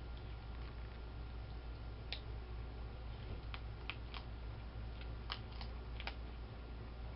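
Skunk crunching dry cat food kibble: a scattered series of short, crisp crunches, about seven, over a steady low hum.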